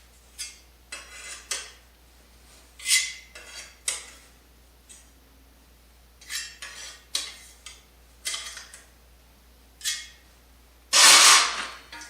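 Sheet-metal tool-rack parts clinking and scraping against each other as the tabs are worked through the slots and bent, in short irregular bursts; the longest and loudest scrape comes about eleven seconds in.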